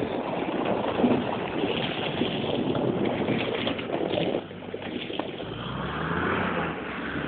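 Rough rushing noise with scattered clicks. From about five seconds in, the New Holland 8560 tractor's diesel engine grows louder and rises in pitch as it pulls.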